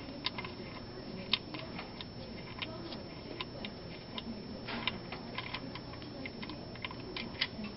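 Scattered light clicks and ticks of a wrench working on a tight oil drain plug, coming irregularly several times a second.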